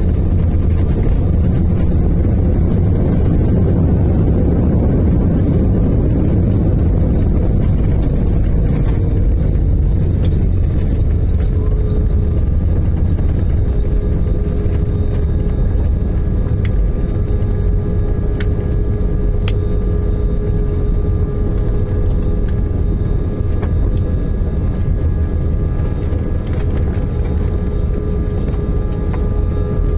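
Airliner cabin noise during the landing: a loud, steady rumble of engines and airflow, with a steady hum that sets in about twelve seconds in.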